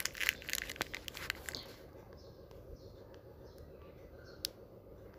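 A quick run of sharp clicks and crackles over the first two seconds, then a low steady background with a few faint chirps and one more sharp click about four and a half seconds in.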